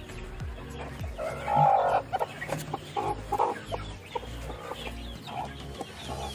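Broody desi (native Indian) hens clucking. One louder call comes about a second and a half in, and shorter calls are scattered through the rest.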